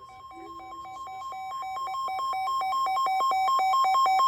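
Weather radio receiver sounding its warning alarm: a steady high tone with a rapid pulsing beep over it, growing steadily louder.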